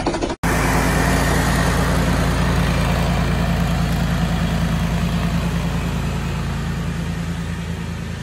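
Zero-turn riding mower engine running steadily while mowing, slowly fading as the mower drives away.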